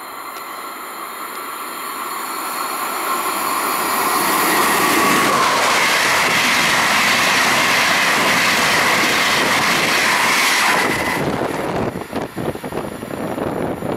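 Fast passenger train running through the station without stopping: a rush of wheels and air that builds as it approaches and holds loud for about six seconds with a steady high whine, then cuts off suddenly as the last car passes, leaving choppy buffeting of its slipstream.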